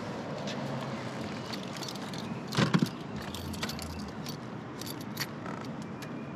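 Keys jangling and small clicks and rattles as they are handled at the dashboard of a parked classic convertible, with no engine running. The loudest moment is a quick cluster of clicks about two and a half seconds in.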